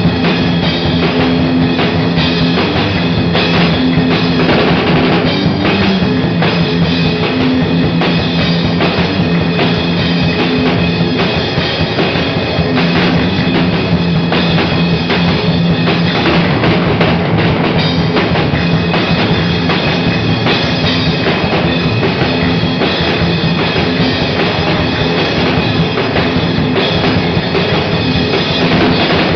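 Live instrumental punk rock jam: a drum kit with cymbals and bass drum played along with an electric guitar and a second guitar, loud and continuous.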